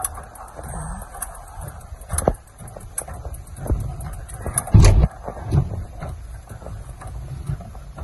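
Low rumble of a car's cabin while driving on a snowy street, with irregular thumps and clicks, the strongest about five seconds in.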